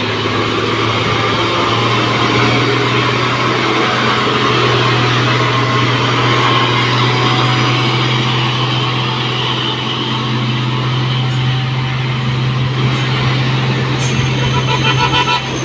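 Diesel engine of a loaded Mitsubishi Fuso 220PS cargo truck running under load as the truck pulls slowly past, a steady low engine note. A fast rattling joins in near the end.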